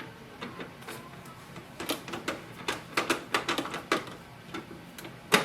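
Plastic clicks and knocks from an HP DeskJet 4100 printer's casing as the paper-sensor plate is handled and fitted back on. The clicks are scattered, busiest in the middle, with a sharper knock near the end.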